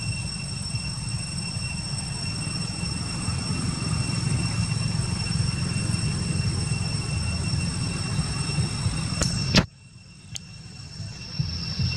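Steady outdoor background noise: a low rumble under a thin, steady high whine. About ten seconds in, a sharp click is followed by a sudden drop to a much quieter hush, and the rumble builds back within about two seconds.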